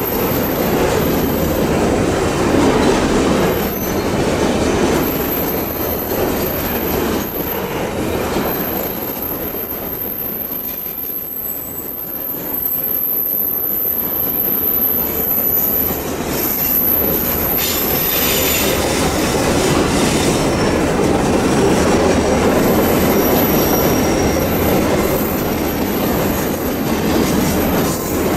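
Long train of empty Babaranjang coal wagons rolling past on a curve: a steady rumble of wheels on rail with clickety-clack over the joints, and a thin high-pitched wheel squeal that comes and goes.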